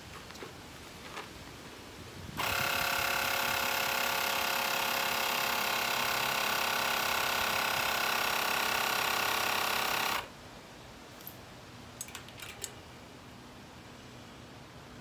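Handheld portable air compressor inflating a bicycle's rear tyre: its motor starts about two seconds in, runs steadily and loudly for about eight seconds, then cuts off suddenly. A few light clicks follow.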